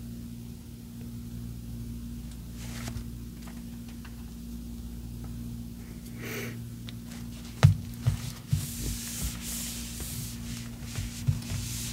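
A whiteboard being wiped clean: a few knocks against the board, then rubbing strokes in the second half, over a steady low hum.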